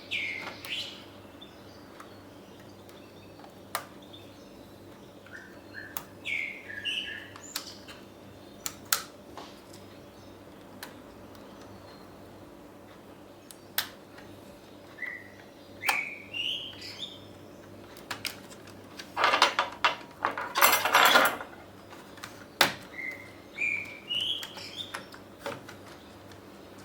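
A small bird chirping in short rising phrases, four or five times, over scattered sharp clicks from handling laptop parts and tools. About two-thirds of the way in, a loud scraping rush lasts roughly two seconds.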